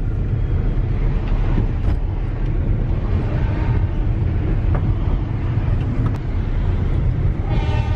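Steady low rumble of a vehicle driving along the road. Near the end a Darjeeling Himalayan Railway train's horn starts sounding, one held tone.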